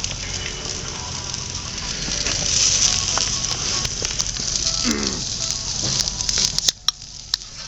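Campfire cooking fire burning with a steady hiss and scattered sharp crackles, the crackles thickest near the end, when the hiss drops away suddenly.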